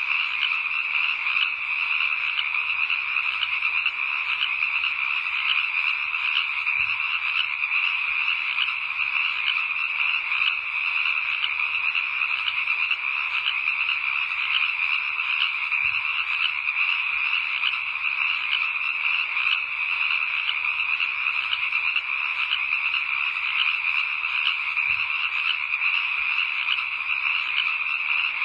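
A dense, steady chorus of many frogs calling at once, a continuous pulsing trill with no pauses.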